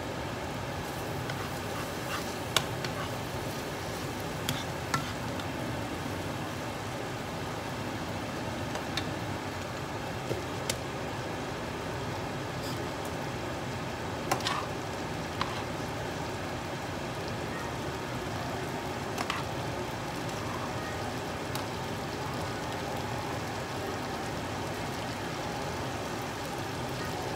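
Steady sizzle of beef frying in a skillet, with occasional sharp clicks of metal tongs against the pan.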